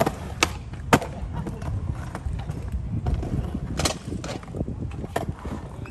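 Skateboard wheels rolling on concrete with a steady low rumble, broken by sharp clacks of the board hitting the ground: three in the first second, then more about four and five seconds in.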